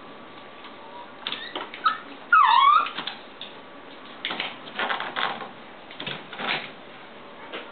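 A small chiweenie dog's claws clicking and scrabbling on a hardwood floor, with one short whine that rises and falls about two and a half seconds in.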